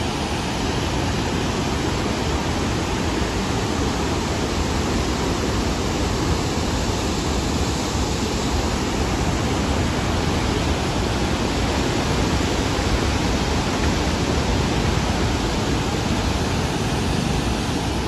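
Floodwater rushing out of a dam's open spillway gates at full flow: a loud, steady, unbroken rush.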